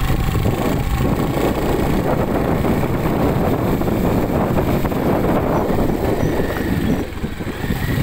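Wind buffeting the phone's microphone: a loud, steady rushing rumble that eases briefly about seven seconds in.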